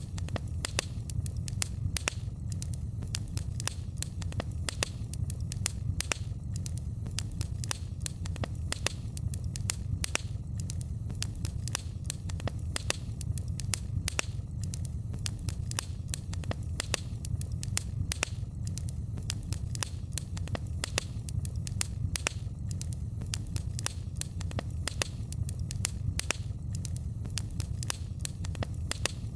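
Fireplace fire crackling steadily, with frequent sharp pops and snaps, several a second, over a low steady rumble.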